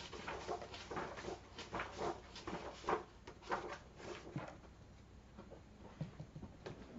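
Faint, irregular rustling and soft taps of a paperback book's paper pages being turned and handled.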